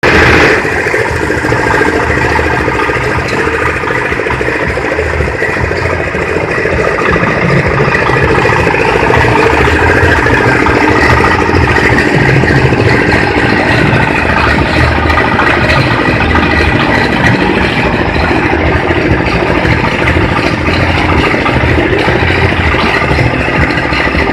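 Livestock feed chopper machine running steadily, a motor drone with rattling and clatter from the machine, slightly louder from about seven seconds in.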